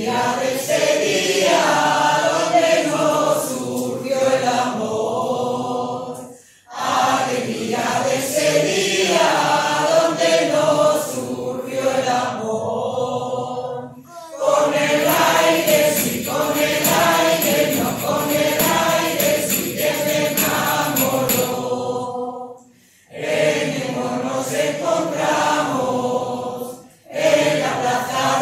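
A mixed choir of men's and women's voices singing a song, in phrases separated by brief pauses every few seconds.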